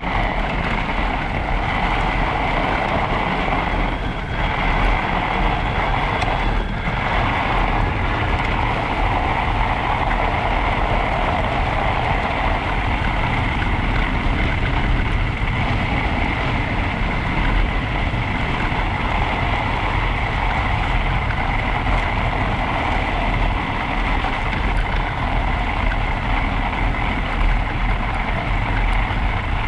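Steady wind rush on the camera microphone mixed with tyres rolling over packed snow as an e-bike rides along a groomed snow trail. A thin, steady whine runs through it.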